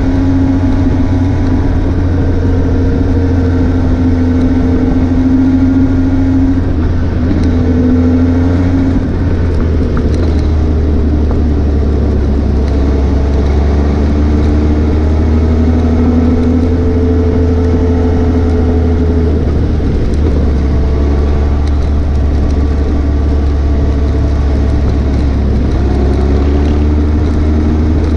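Suzuki GSX 750 motorcycle engine running under way, its note holding steady for a few seconds at a time and then easing down or rising slowly with the throttle, over a heavy low wind rumble on the microphone. The sound cuts off suddenly at the end.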